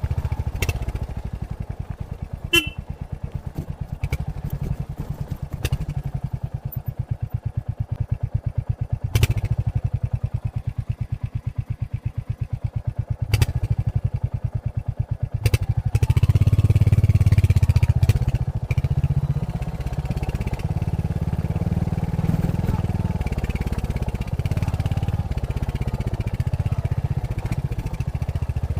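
Royal Enfield Hunter 350's single-cylinder engine through its stock exhaust, pulsing at low revs with a few sharp knocks. About halfway through it opens up louder, then runs steadily under way.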